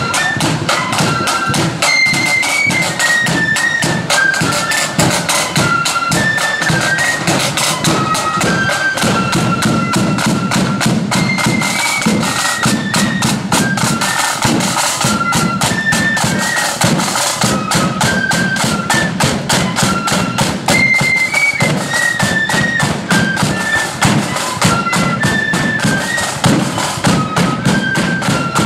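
Marching flute band playing a high, quick tune on flutes over rapid snare-drum beating and a bass drum.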